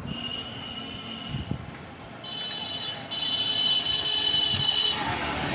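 A high, steady electronic buzz over light street traffic, becoming louder and fuller about two seconds in.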